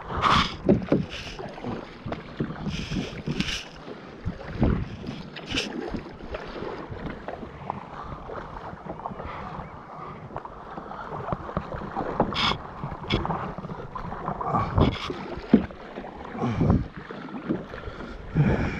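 Kayak paddle strokes in sea water: irregular splashes and drips as the blades dip and lift, over water washing against the plastic sit-on-top kayak hull, with wind buffeting the microphone.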